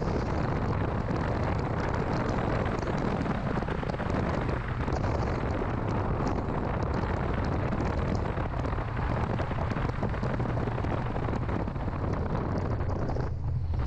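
Mini Cooper S on the move: a steady engine drone under a rush of road and wind noise, with a brief lull in the rushing near the end.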